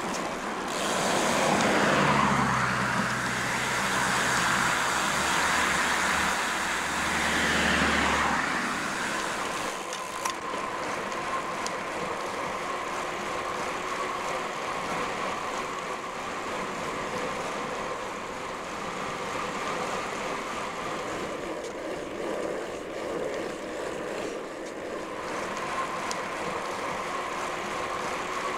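A motor vehicle with a low engine drone passes close by. It builds over the first two seconds and fades out about nine seconds in, leaving a steady road noise with a faint hum.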